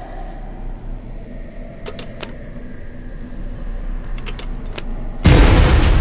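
Film sound design: a low rumbling drone with a few faint clicks, then a sudden loud noisy hit about five seconds in that keeps going.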